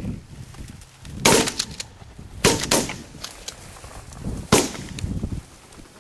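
Shotguns firing four shots at ducks flying overhead. The first comes about a second in, two follow close together near the middle, and the last comes about four and a half seconds in.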